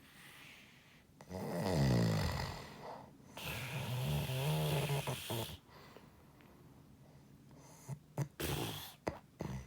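Pig-like snoring: two long snores of about two seconds each, the first falling in pitch, then after a pause a run of short snorts near the end.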